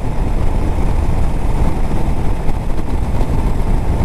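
Motorcycle cruising steadily on the open road: engine and wind noise on a bike-mounted camera's microphone.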